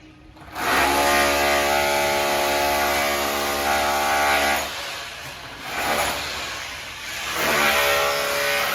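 A motor running at a steady pitch for about four seconds, dropping away, then running again near the end.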